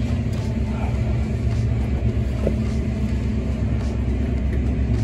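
Steady low machine hum, with faint small clicks and rustles of wires and connectors being handled.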